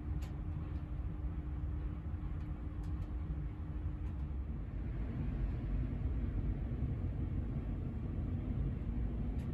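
Steady low rumble of a stationary GWR Castle Class High Speed Train, heard from inside a passenger coach. A faint steady hum stops about halfway through.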